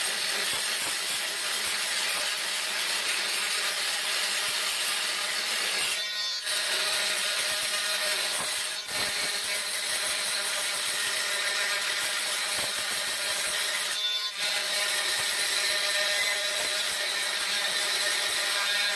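Makita oscillating multi-tool with a 1.7 mm diamond-grit blade grinding old grout out of the joints between floor tiles: a steady, high-pitched grinding buzz that breaks off briefly a few times, most clearly about six and fourteen seconds in.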